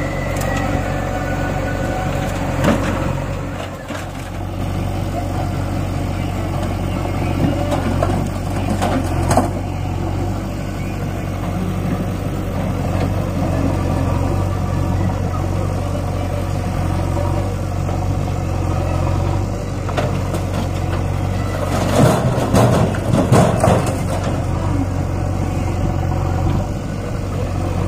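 Heavy diesel engine running steadily at low speed, with a few loud knocks and rattles about 22 to 24 seconds in.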